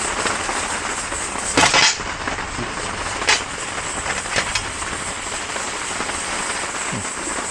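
Lid of an aluminium military mess tin being lifted off a pot of freshly cooked rice, with a brief metallic scrape and clatter about two seconds in and a few light clicks after it, over a steady rushing hiss.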